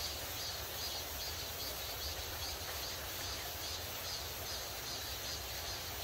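Shallow rocky mountain stream running, a steady rushing hiss, with insects chirping in a regular rhythm of about three calls a second.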